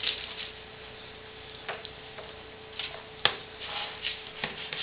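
Small plastic mosaic pegs clicking as they are picked from a tub and pushed into a plastic pegboard: a few scattered ticks, the sharpest about three seconds in. A faint steady hum sits underneath and stops at about the same moment.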